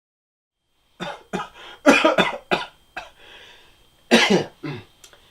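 Dead silence for about a second, then a person coughing in a string of short, harsh bursts, about seven in all.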